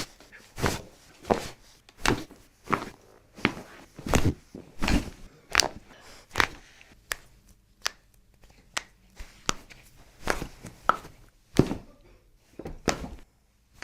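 A series of short, sharp knocks or taps, coming fairly evenly at about one and a half a second and thinning out near the end.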